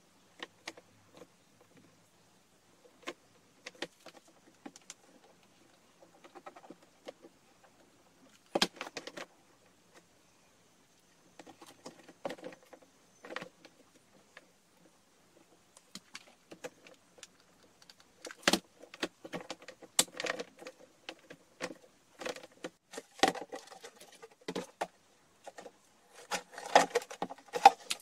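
Hard plastic basket lid and handle being handled: scattered clicks, taps and knocks of plastic on plastic with quiet gaps between. The handling clatter grows busier in the second half and is densest just before the end.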